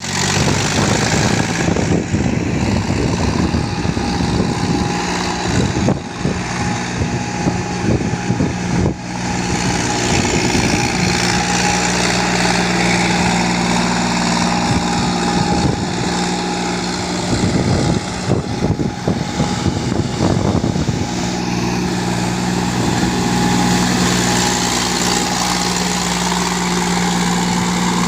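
Mahindra 265 tractor's three-cylinder diesel engine running at a steady speed, with stretches of uneven clatter over it.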